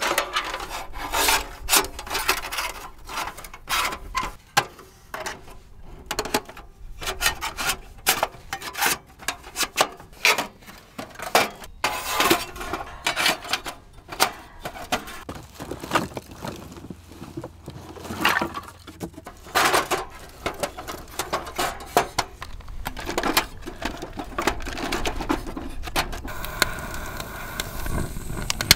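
A folding sheet-metal wood stove being unfolded and assembled by hand: many short metal clicks, clanks and scrapes as panels and grates are set in place, then split kindling knocking as it is stacked inside. About two seconds before the end, a torch lighter starts with a steady hiss.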